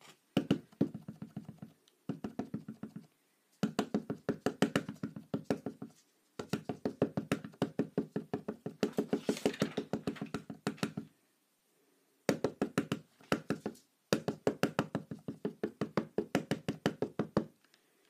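Ink pad dabbed rapidly onto rubber stamps on an acrylic block, a fast run of knocks several a second, to ink the stamps before stamping. The knocks come in runs of a few seconds with short pauses between them.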